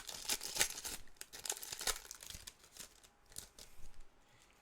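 Foil wrapper of a Pokémon card booster pack being torn open and crinkled: a quick run of crackles over the first two seconds or so that thins out and grows quieter toward the end.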